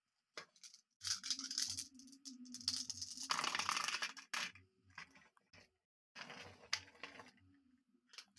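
Glass marbles and plastic toys being handled: irregular rattling, scraping and rustling in short stretches, loudest a little past the middle.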